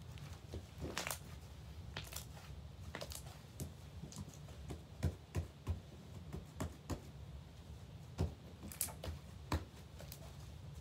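Glitter slime being squished and pressed by hand, giving irregular sticky clicks and pops with a few soft thumps.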